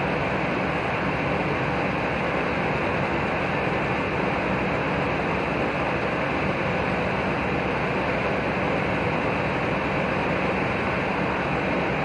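Steady drone of idling bus engines, even and unchanging, with a faint hum.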